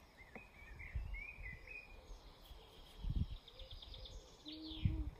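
Birdsong in the background: a warbling phrase, then a fast trill and two quick downward-sweeping notes near the end. Two soft low thumps come in between, about three seconds in and near the end.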